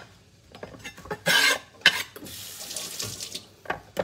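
Water running from a kitchen sink faucet in two short spells, a brief gush just over a second in and a steadier run of about a second later on, with a few sharp knocks of kitchenware between them.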